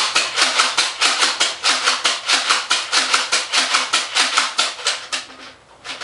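Nerf dart blaster being fired rapidly: a rattling run of sharp clacks, about five a second, that stops about five seconds in.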